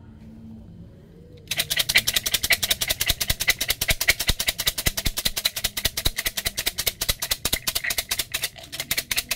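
A cylinder of fortune sticks shaken hard, the sticks clattering against each other and the cup in a fast, steady rattle that starts about a second and a half in. It is shaken to make one stick work its way out in fortune-stick divination (xin xăm).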